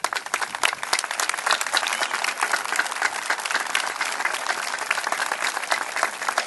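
Crowd applauding steadily: many hands clapping together without a break.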